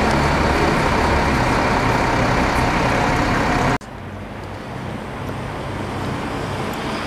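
Road traffic: a heavy vehicle's engine running close by with a steady low hum. About four seconds in the sound cuts off suddenly and gives way to quieter, steady traffic noise.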